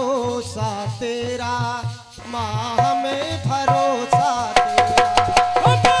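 Devotional folk music: a harmonium with a wordless vocal line over hand-drum accompaniment. Past the middle, one harmonium note is held while the drum plays sharp, regular strokes, about three a second.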